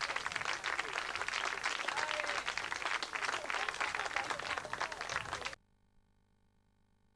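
Audience applauding, a dense crowd of hand claps, which cuts off suddenly about five and a half seconds in, leaving near silence.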